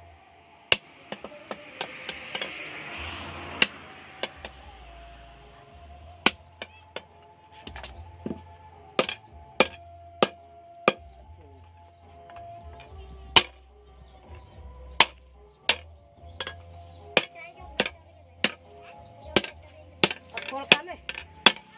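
Hand hammer striking a red-hot bar of pipe steel on a steel post anvil while it is forged into a digger hoe blade. The blows are sharp and irregular, a few widely spaced at first, then coming about one to two a second from about a third of the way in.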